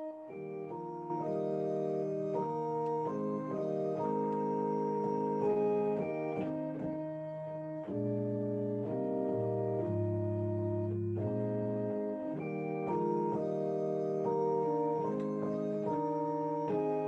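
Keyboard on an organ sound playing a slow prelude in held chords, the notes sustaining without fading. A deeper bass part comes in about eight seconds in for several seconds.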